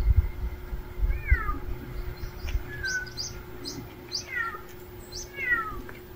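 A cat meowing three times, each call short and falling in pitch.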